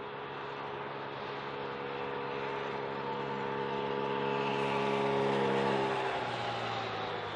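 Incheon Subway Line 1 electric train's motors whining: a steady tone with several overtones that grows louder, then drops to a lower pitch about six seconds in.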